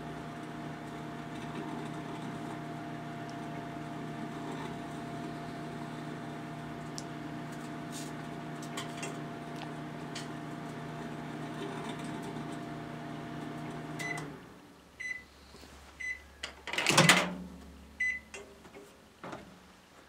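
1000 W Panasonic microwave oven running with a steady hum, a few sharp snaps coming from the CDs sparking inside. About fourteen seconds in the oven stops and gives a few short beeps. Then the door opens with a loud clunk, followed by small clicks.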